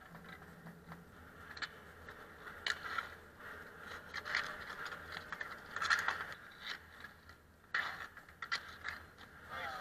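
Ball hockey play on an asphalt rink: sticks scraping across the pavement, with scattered sharp knocks of stick on ball and against the net and boards.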